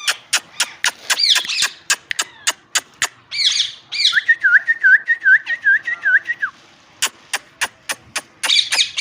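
Ringneck parrot (rose-ringed parakeet) calling: short screechy chirps that sweep up and down in pitch, with a quick run of about seven repeated notes in the middle. A series of sharp clicks, about three a second, runs under the calls.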